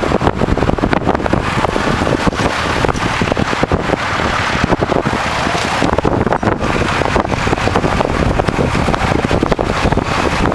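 Tractor engine running, heavily buffeted by wind on the microphone.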